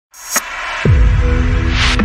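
Electronic logo sting: a rising whoosh with a sharp tick, then a deep boom falling in pitch just under a second in, held low tones beneath it, and a swelling swoosh near the end as the logo lands.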